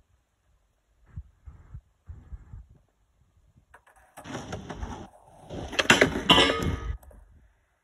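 Skateboard wheels rolling over wooden plank boards, getting louder as the board comes closer, with quick clacks as the wheels cross the plank joints; loudest about six seconds in, stopping about seven seconds in. A few soft knocks come before it, about a second in.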